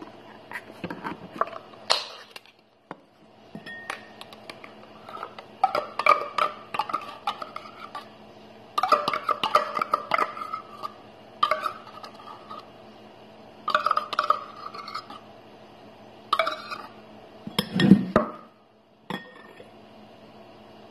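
A metal spoon scraping a small plastic tub and clinking against a glass mixing bowl in repeated short clusters, each with a brief ring. Near the end comes a louder thump.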